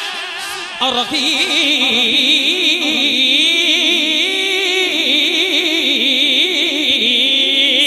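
A man singing a devotional hamd into a microphone, drawing out a long wavering, ornamented line with no break for words.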